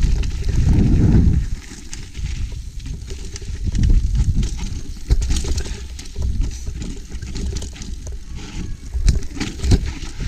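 Wind gusting across an action-camera microphone, a loud low rumble that drops off about a second and a half in, with scattered clicks, knocks and rattles of a mountain bike riding over rough trail.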